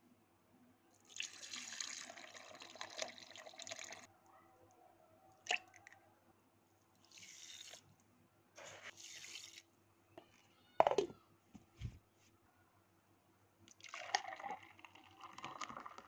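Liquid being poured and dripping into a glass jar in several short spells, with a sharp click and one louder knock between them.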